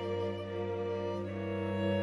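Background music of bowed strings, violin and cello, playing long held notes that change about a second and a quarter in.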